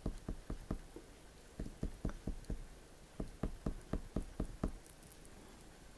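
Oil pastel crayon dabbed on paper in quick short strokes: runs of soft taps, about five a second, in three bursts with short pauses, stopping shortly before the end.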